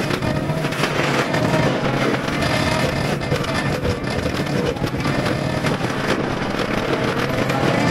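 Cat 299D3 compact track loader running with its Fecon BlackHawk drum mulcher head spinning, working through dirt and brush to smooth the ground. A steady, dense noise of engine, hydraulics and mulcher.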